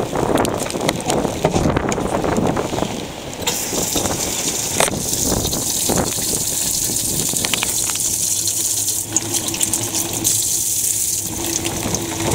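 Wind buffeting the microphone, then from about three and a half seconds in a steady hiss of water jetting out of a small white fitting in a boat's fiberglass deck.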